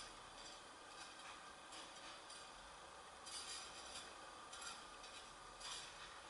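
Faint steady hiss with light metallic clinks at irregular moments, several times.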